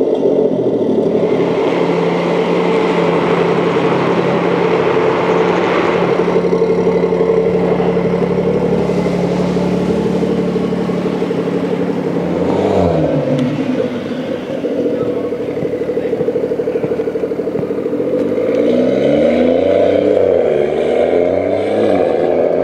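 BMW M140i's turbocharged 3.0-litre straight-six idling steadily, then dropping in pitch about halfway through and revving up and down several times near the end as the car pulls away.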